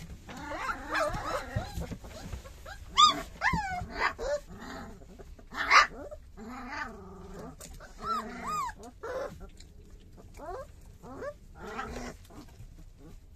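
Three-week-old puppies whining and squealing: a string of short, high-pitched cries that bend up and down, with the loudest yelps about three and six seconds in.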